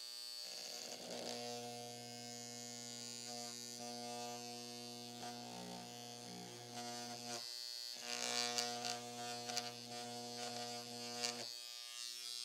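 Handheld electric engraver, a mains-powered vibrating carbide-tipped stylus rated at 7,200 strokes per minute, buzzing steadily as its tip hammers into a metal plate through a thin plastic stencil. It stops briefly about seven and a half seconds in, runs again, and cuts off shortly before the end.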